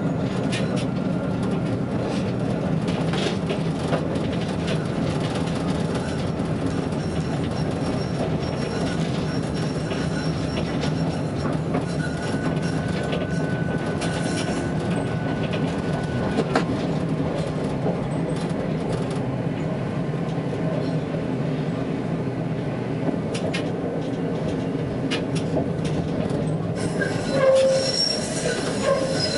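Tatra T3S tram running along its track, heard from inside the driver's cab: a steady low hum of motors and wheels on rail with occasional clicks. About 27 seconds in, the wheels start to squeal as the tram enters a tight curve.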